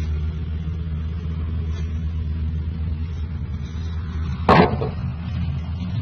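A steady low motor rumble, with one short loud noise about four and a half seconds in.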